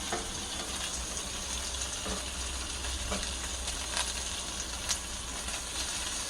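Steady sizzling hiss of cooking on a stove, over a low hum, with a few light clicks.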